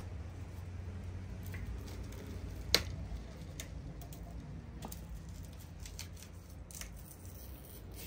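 Hand food preparation: light scattered clicks of a small knife cutting a red onion, giving way to handling of a wooden two-board press squeezing pomegranates. One sharp click about three seconds in is the loudest sound, over a low steady hum.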